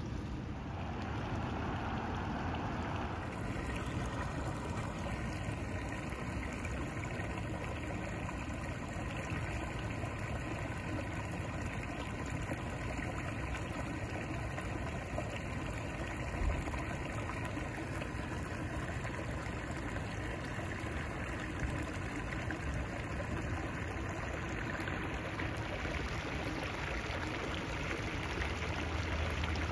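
Steady running water: runoff from a sheared-off fire hydrant flowing along a street gutter, over a low hum of road traffic.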